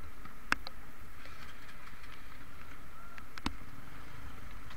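Heavy rain falling steadily on a wet street, with two sharp taps of drops striking the microphone.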